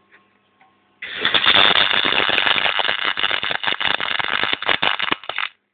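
MIG welder arc crackling steadily as a weld bead is laid. It strikes about a second in and cuts off sharply near the end, giving one run of about four and a half seconds.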